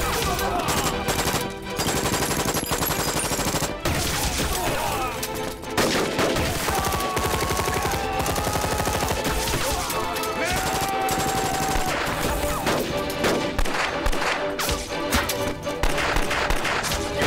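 Sustained battle gunfire: rapid light-machine-gun bursts mixed with rifle and pistol shots, continuous throughout, over background film music with a held melody partway through.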